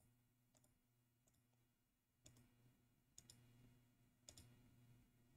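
Near silence with a faint electrical hum and a handful of faint computer mouse clicks, single and in quick pairs, as the video timeline is scrubbed.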